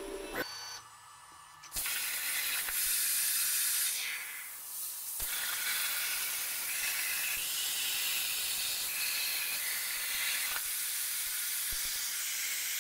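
CNC plasma cutter torch cutting a circle out of metal plate: the arc and its air jet make a loud, steady hiss that starts about two seconds in, with a brief dip a couple of seconds later.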